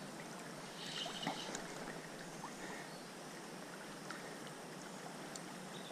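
Faint river water lapping and rippling at the bank in a steady hiss, with a few faint clicks about a second in.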